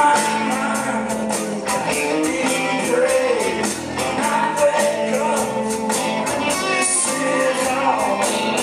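Live rock band playing: electric guitars and bass guitar over drums, with the cymbals keeping a steady beat.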